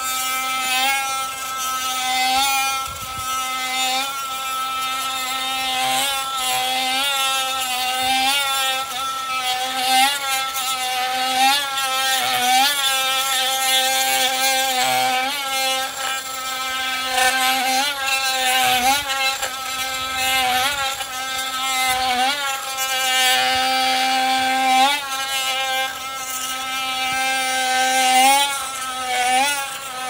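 Makita oscillating multi-tool cutting through a pin: a steady high-pitched motor whine whose pitch dips briefly again and again as the blade bogs in the cut, then recovers.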